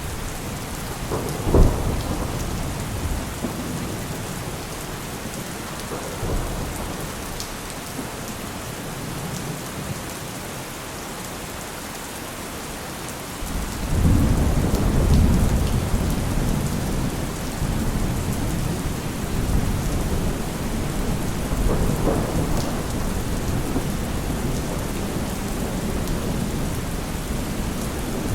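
Heavy rain falling steadily, with thunder: a sharp loud crack about a second and a half in, a weaker one a few seconds later, then a long low rumble of thunder from about halfway that swells twice and keeps rolling.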